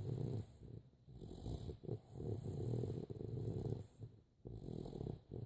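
Boxer dog snoring: a run of low snores of uneven length, the longest lasting nearly two seconds in the middle.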